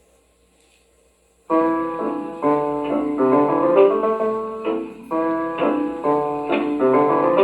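Playback of a freshly cut clear Lexan record: a faint hum from the lead-in groove for about a second and a half, then a 1930s dance-band recording starts abruptly. It opens with chords struck in a steady rhythm.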